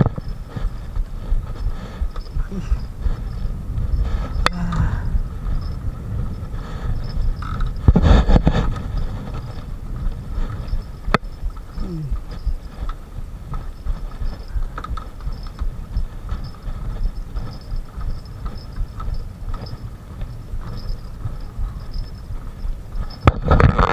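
Steady low wind rumble on the microphone, with louder bursts about 8 seconds in and near the end.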